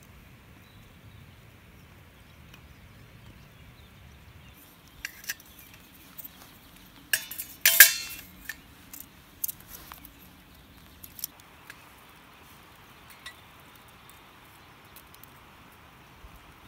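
Metal clinks and knocks of a small camping pot and twig-burning stove being handled while sticks are set into the stove, in scattered strikes with the loudest cluster about halfway through.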